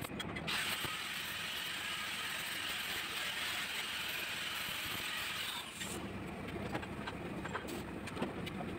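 MIG (GMAW) welding arc running with a steady crackling hiss for about five seconds, then stopping about 6 seconds in, followed by a few faint clicks.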